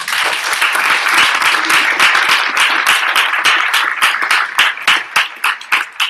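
Audience applauding: a dense round of hand clapping that thins into scattered separate claps near the end.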